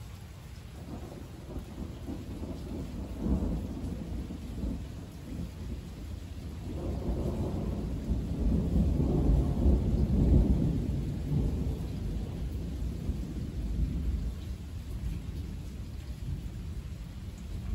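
Thunder rumbling in low, rolling swells: a short one a few seconds in, then a longer, louder roll through the middle that eases off toward the end.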